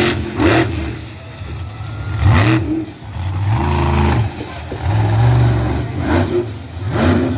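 Monster truck engine revving hard in repeated bursts, its pitch rising and falling with each throttle stab as the truck spins on the dirt.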